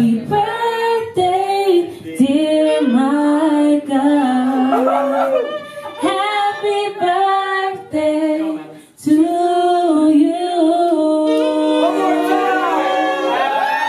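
Unaccompanied singing voices, a cappella, holding long sustained notes. They break off briefly about nine seconds in, then resume with several voices overlapping.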